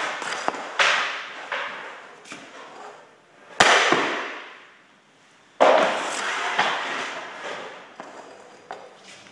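Hockey pucks striking a goaltender's pads and the boards: sharp cracks that ring on in a hard-walled, echoing practice rink. The two loudest come about three and a half seconds in and again near six seconds, with lighter clicks between.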